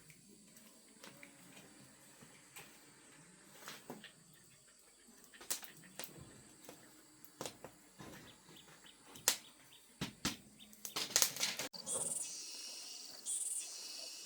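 Scattered sharp clicks and taps that grow denser toward a quick cluster about eleven seconds in. Then insects chirping in a steady, high-pitched pulsing rhythm, roughly three pulses every two seconds.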